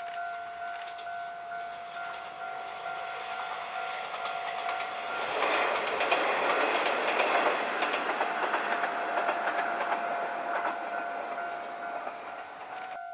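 Kanto Railway KiHa 101 and KiHa 102 diesel railcars passing along the line, their running noise swelling to a peak about six seconds in and then fading away. A steady high tone runs underneath throughout.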